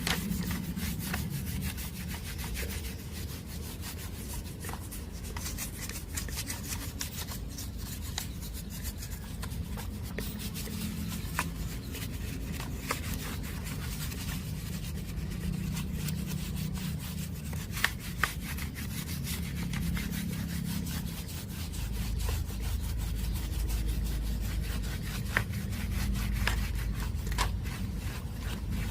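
Steady rubbing and scraping with many small clicks and a few sharper ticks, from hand work on the radio-cassette player.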